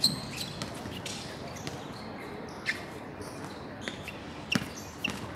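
Basketball bouncing a few times on an outdoor hard court, with short high squeaks from sneakers between the thumps.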